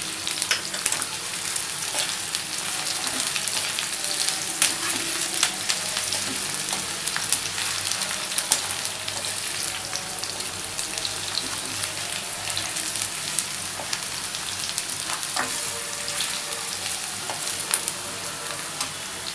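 Potato pieces, onion and crushed garlic sizzling steadily in hot oil in a wok, stirred with a metal spoon that scrapes and clicks against the pan now and then.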